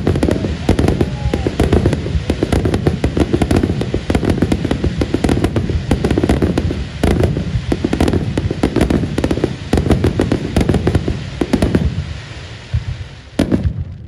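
Aerial firework shells bursting in quick succession: a dense, continuous barrage of deep booms and sharp cracks, easing briefly near the end before another loud burst.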